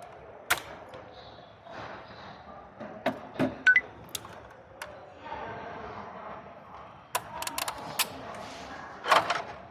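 Scattered sharp clicks, taps and clinks of hand tools and parts being handled during a massage chair repair, coming at irregular moments with a cluster near the end.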